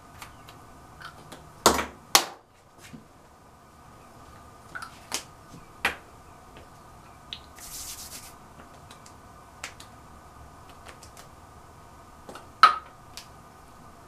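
Sharp clicks and taps of small plastic makeup containers and caps being handled: two loud clicks about two seconds in, a few lighter ones in the middle and another loud click near the end, with a short hissing rustle about eight seconds in, over a faint steady hum.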